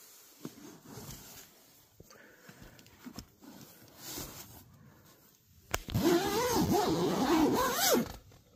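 Soft rustling of nylon tent fabric and boots being handled, then a tent door zipper pulled for about two seconds near the end, its pitch rising and falling with the pull. The zip is the loudest sound.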